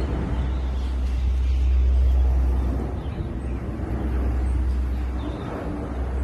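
Jet airliner passing overhead on its landing approach, its engines a low steady rumble that swells about two seconds in and then eases.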